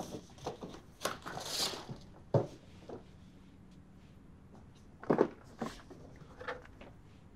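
A rustle, then a few soft knocks and thuds, the loudest pair about five seconds in.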